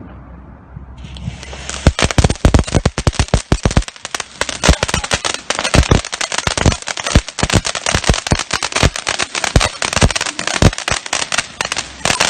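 Fireworks going off in a fast, uneven volley of sharp cracks and bangs, lasting about ten seconds, with a hiss starting about a second in just before the cracking.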